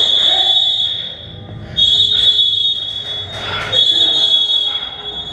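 An electronic alarm buzzer sounding a steady high-pitched tone in long repeated beeps, each a second or two long with short gaps, over rustling movement.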